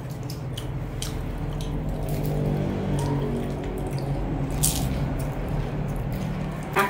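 Close eating sounds of a crisp fried spring roll: biting and chewing, with a few sharp crunches, the loudest about two-thirds in, over a steady low hum.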